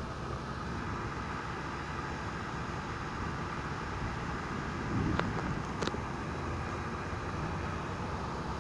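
Steady hiss of a severe thunderstorm's rain and wind, with a brief low swell about five seconds in and two sharp clicks soon after.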